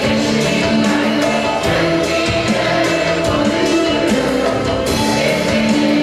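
A mixed choir singing Turkish classical music (Türk sanat müziği), accompanied by an ensemble of violins and ouds, in held, shifting melodic notes.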